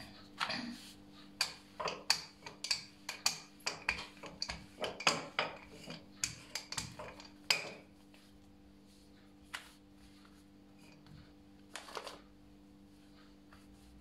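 Wooden rolling pin knocking and rolling on a granite countertop as thin dough is rolled out: a quick run of clicks and taps for about the first seven seconds, then only a few scattered soft taps as the dough sheet is handled by hand. A steady low hum sits underneath.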